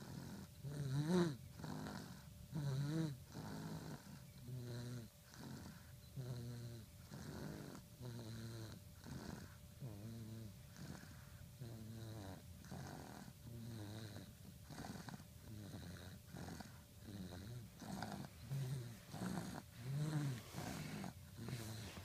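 Snoring: a steady run of buzzing, pitched breaths at about one a second, a little louder at the start and again near the end.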